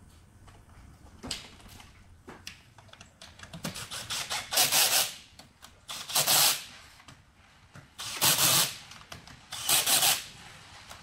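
Cordless drill driver running in four short bursts, each under a second and spaced a second or two apart, driving in the bolts that fasten the pump body onto the pump casing. A couple of light knocks come before the first burst.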